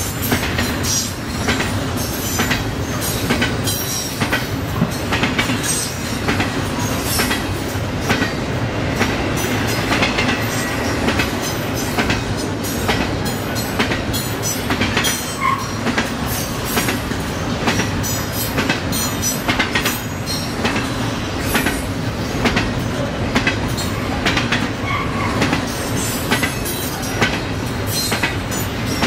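Train cars rolling past steadily, their wheels clicking over the rail joints in a continuous, uneven stream.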